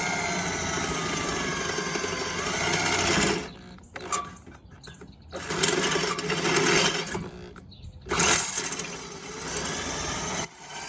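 Power drill running: one steady run for about three seconds, then several shorter bursts with stops between.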